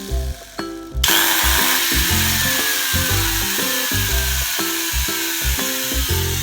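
A cordless power tool's motor switched on about a second in and running free, its whine slowly falling in pitch, over background music with a steady beat.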